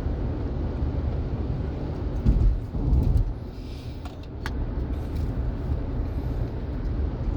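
Road and engine noise of a moving car heard inside the cabin, a steady low rumble with two louder low surges about two and three seconds in.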